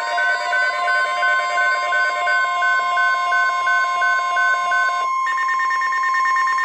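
Weather radio alert tones: a loud steady high tone held throughout, with a second pulsing tone beating on and off about four times a second. About five seconds in the pulsing changes to a higher, buzzier tone while the steady tone carries on.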